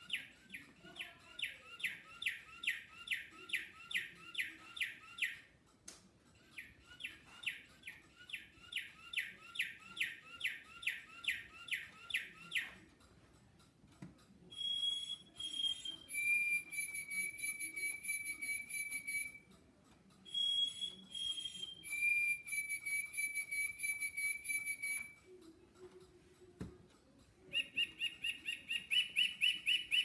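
A singing bird clock plays recorded bird songs through its small speaker, three different songs in turn. First comes a run of quick repeated notes, played twice. Next a short high note leads into a long steady lower whistle, also played twice, and a fast chatter starts near the end.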